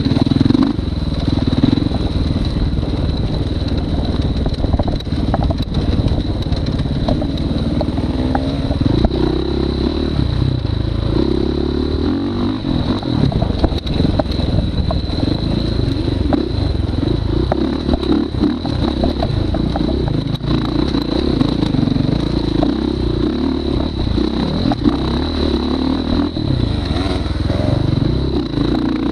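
Motorcycle engine running hard under changing throttle, its note rising and falling as it revs up and backs off.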